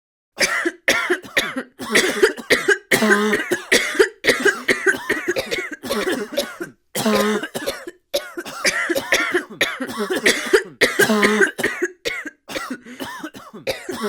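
A person coughing and clearing their throat over and over, in many short hacking bursts with only brief gaps between them.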